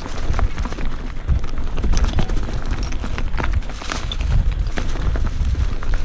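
Mountain bike rolling fast over a stony, leaf-covered forest trail: tyres crunching over loose stones and dry leaves with many irregular clicks and knocks as pebbles are struck and the bike rattles, over a steady low rumble.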